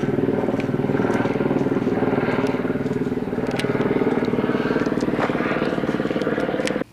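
Helicopter flying overhead: the main rotor's fast, steady chop over the hum of its engine. The sound cuts off suddenly near the end.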